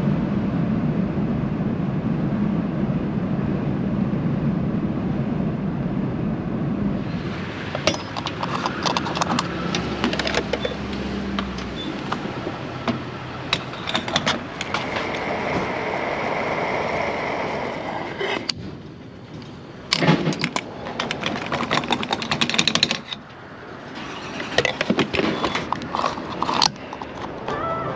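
A vehicle on the move: a steady low drone for the first several seconds, then rattling and clicking with sharp clatters, dropping away briefly twice.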